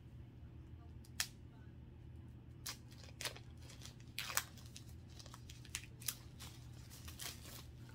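Makeup packaging being opened by hand: scattered faint crinkles, clicks and snaps, over a steady low hum.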